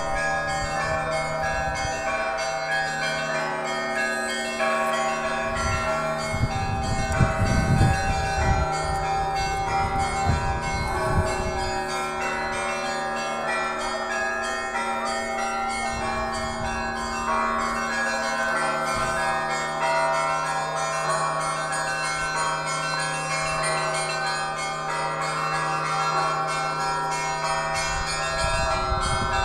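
Church bells ringing: several bells of different pitches struck again and again, their tones ringing on over one another without a break. A few low rumbles sound under the bells about a quarter of the way in.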